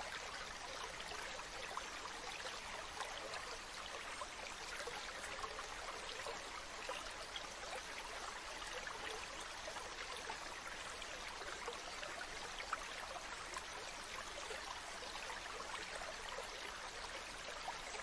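Shallow stream running over rocks: a steady rush of flowing water with many small splashes and trickles.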